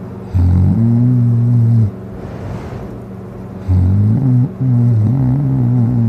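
A person heavily drunk and passed out on their back, snoring loudly: two long, steady-pitched snores, the second longer with a brief break in it, and a breathy rush of air between them.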